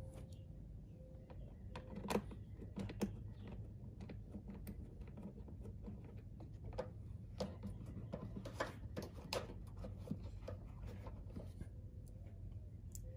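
Scattered light clicks and taps from hand tools and plastic trim as a windshield cowl panel is pressed into place and screws are handled, the sharpest two about two and three seconds in and a cluster of them later.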